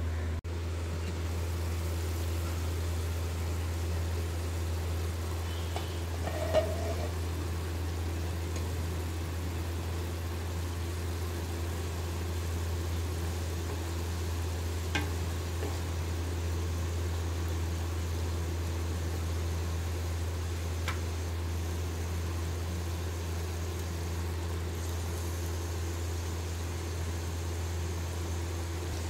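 Chicken cooking in masala gravy in a pan, faint sizzling under a steady low hum, with a few short knocks, the loudest about six seconds in.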